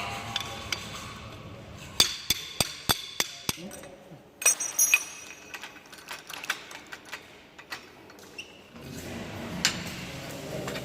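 Hammering: a quick run of about five sharp strikes a couple of seconds in, a few louder knocks around the middle, then lighter irregular taps and clinks.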